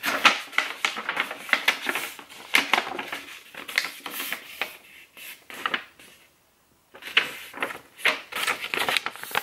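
Paper rustling and crinkling as a folded paper receipt and its receipt holder are handled and opened, a run of quick, sharp crackles with a brief pause about six seconds in.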